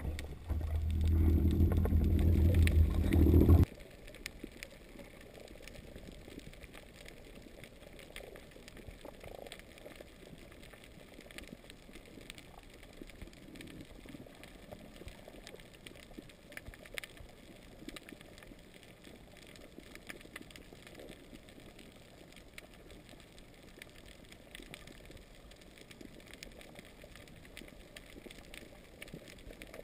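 Underwater, a boat motor hums loudly and low for the first few seconds, then cuts off suddenly. After that there is only faint steady underwater hiss with scattered small clicks.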